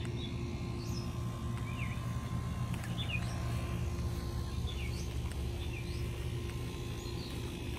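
Small songbirds chirping: short high chirps, about a dozen scattered through, over a steady low outdoor hum.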